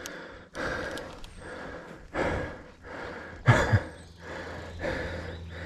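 A mountain biker breathing hard, heavy gasping breaths coming about once a second.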